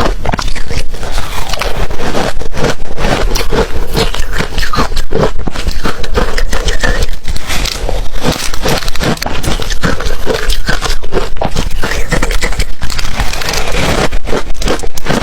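Ice being bitten and chewed close to the microphone: loud, rapid, irregular crunching and crackling.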